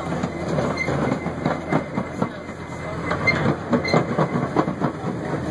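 Quarter-scale ride-on train rolling along its track, its wheels clicking rapidly and irregularly over the rail joints above a steady low rumble of the cars.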